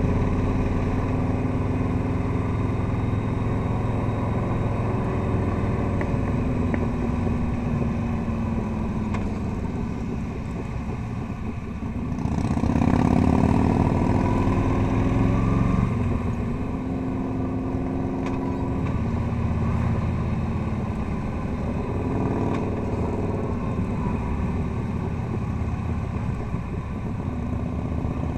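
Touring motorcycle's engine running at road speed, its pitch rising and falling with the throttle, with a louder stretch about halfway through.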